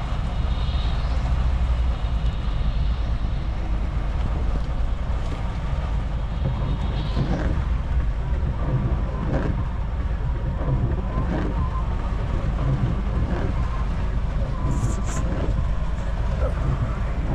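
Inside a moving lorry cab in a downpour: steady low engine and tyre noise on the wet motorway, with scattered taps of rain on the cab and windscreen.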